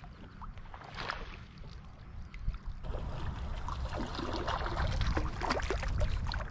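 Water splashing and gurgling as a hooked bass fights at the surface beside a paddleboard, getting busier and louder in the second half. A low wind rumble on the microphone runs underneath.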